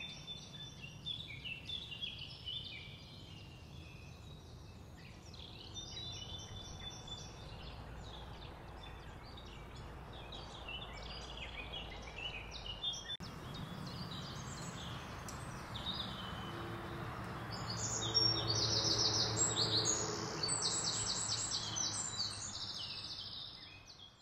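Small birds chirping and singing over a steady low outdoor background rumble, with a run of rapid, repeated chirps past the middle; the sound fades out at the end.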